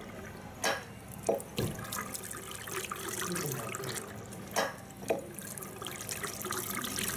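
Water from a tap splashing into a ceramic sink as hands are rinsed under it, with a few sharp knocks or splashes, two close together about a second in and two more near the middle.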